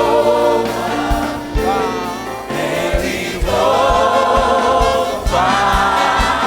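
A choir singing a gospel worship song with a band, held notes from several voices over a steady low beat.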